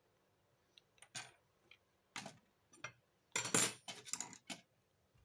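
Light clinks and knocks of small hard objects being handled and set down, a few single strikes and then a quick cluster of them about three and a half seconds in.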